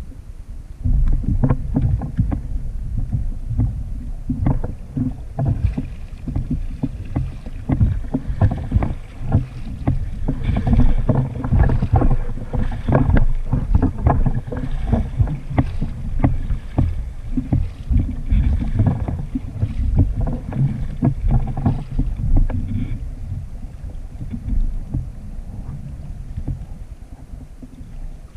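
Kayak being paddled: a double-bladed paddle splashing and dripping with each stroke and water slapping the hull, over a loud low rumble that starts about a second in.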